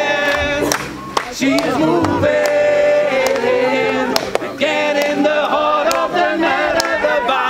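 A crowd of many voices singing and calling out together, some notes held, others sliding up and down.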